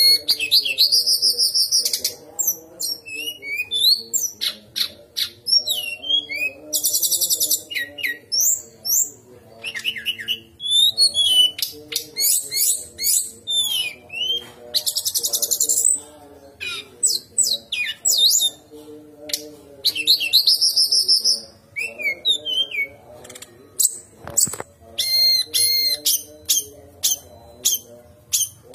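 Brown-chested jungle flycatcher singing a fast, varied song of swooping whistles, rapid rattling trills and sharp clicks, in quick phrases with short gaps.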